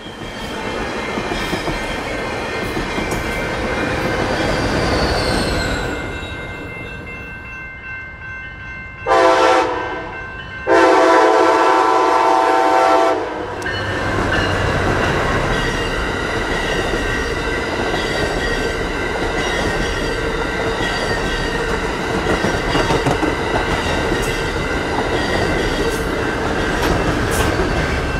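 A passenger train runs on the rails. Then a locomotive air horn sounds twice, a short blast and then a long one. The Amtrak Pacific Surfliner train follows with a loud, steady rumble and the clickety-clack of its wheels.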